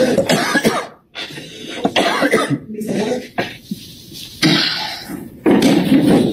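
A man coughing and clearing his throat in several loud bouts.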